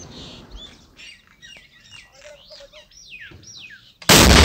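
Small birds chirping with quick falling calls. About four seconds in comes a single very loud explosion from live rocket-launcher firing, and its rumble trails off slowly.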